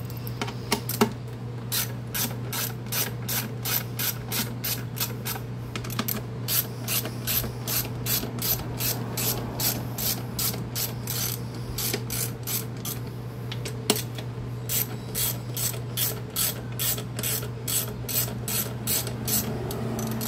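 Socket ratchet clicking in steady runs of about two to three clicks a second as it backs out 8mm bolts on a Tecumseh lawnmower engine, with short pauses between runs. A sharp knock comes about a second in and another at about fourteen seconds.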